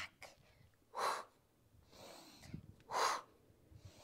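A woman breathing hard in time with a plank exercise: two short, forceful breaths about two seconds apart, with a softer breath between them.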